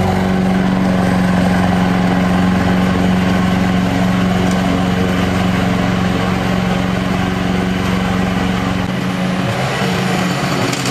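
Lawn mower engine running steadily at a constant speed, its low part thinning slightly near the end.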